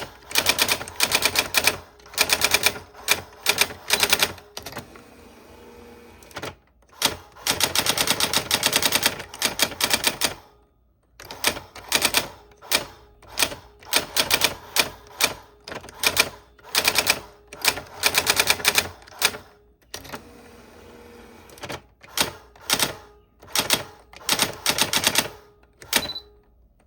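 Old typewriter being typed on: rapid key strikes in word-length runs, broken by two pauses of a second or so, then stopping near the end.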